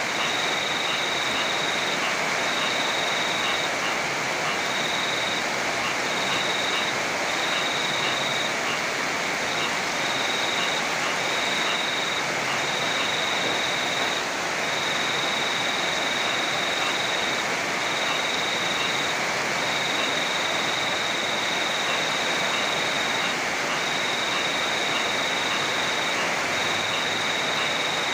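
Heavy rain, a steady dense hiss of downpour. A thin high-pitched trill keeps stopping and starting every second or two over it.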